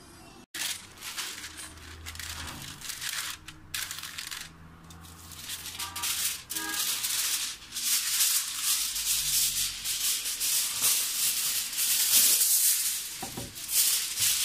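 Parchment paper crinkling and rustling as it is handled and laid over a baking dish, louder and denser in the second half.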